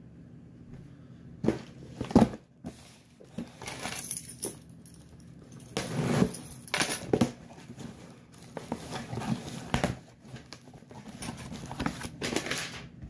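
Cardboard shipping box being opened by hand: irregular rustling, scraping and knocking of the cardboard and its flaps, with a sharp, louder noise about two seconds in.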